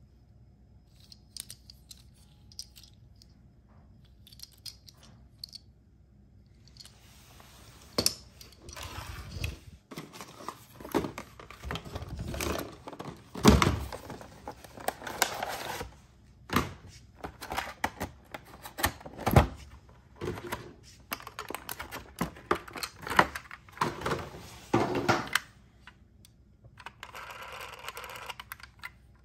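Toy packaging being opened by hand: cardboard and plastic rustling and tearing, with many sharp clicks and knocks. It starts after a few seconds of faint clicking from plastic toy parts.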